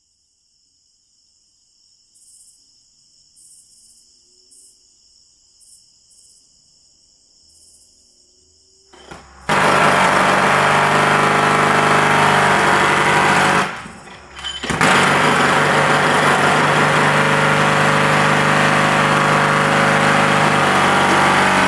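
Faint crickets chirping, then about nine seconds in a small gasoline engine on a paving machine starts up loud and runs steadily, with a rough grinding noise over it. It cuts out for about a second, then runs on.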